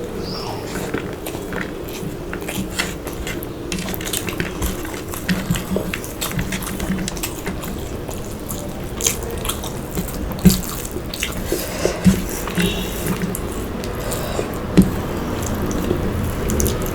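Close-miked eating sounds: wet chewing, lip smacks and sharp mouth clicks, irregular throughout, with a few louder clicks near the middle and toward the end.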